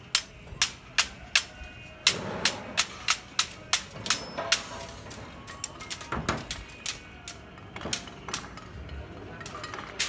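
Sharp metal clinks and taps at an irregular pace of a few a second, from steel tie wire being twisted tight around the rebar of a reinforcement cage with pliers and a tying hook.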